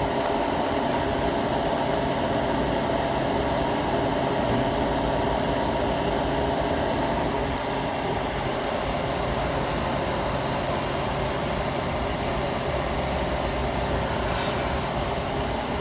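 Commercial refrigeration equipment running: a steady mechanical hum with several steady tones, easing slightly about halfway through.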